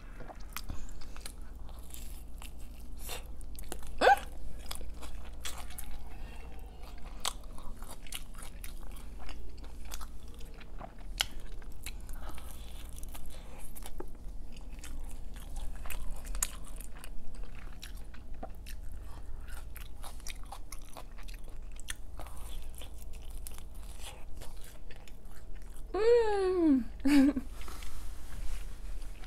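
Close-up mouth sounds of biting and chewing a slice of white pizza with jalapeños: a steady run of small crunches and wet chewing clicks from the crust and toppings. About 26 seconds in comes a short hummed vocal sound that falls in pitch.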